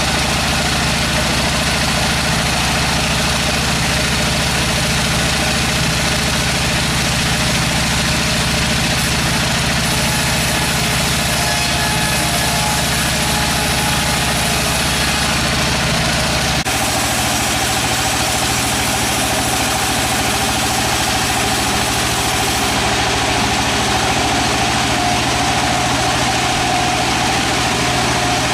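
Steady running of engine-driven sawmill machinery, with a low drone that switches abruptly about two-thirds of the way through to a different steady machine sound.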